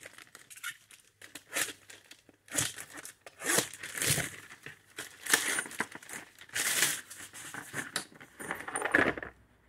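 Plastic postal satchel being cut, torn open and handled as its contents are pulled out: crinkling and tearing of plastic in short, irregular rustles.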